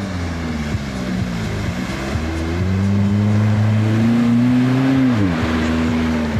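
Off-road SUV engine revving hard as the 4x4 ploughs through a mud pit, the pitch climbing steadily and then falling sharply about five seconds in as the driver lifts off, over the rush of mud and water spraying from the tyres.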